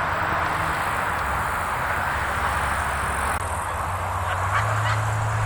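Wind rushing through the trees of an autumn forest as a steady noise, with a low steady hum underneath that grows a little louder near the end.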